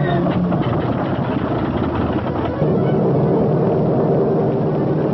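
Heavy engines running in a dense, rough rumble that turns louder and steadier about two and a half seconds in.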